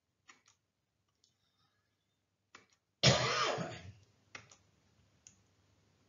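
A person coughs once, loudly, about three seconds in, the sound fading over about a second. A few faint, short clicks come before and after.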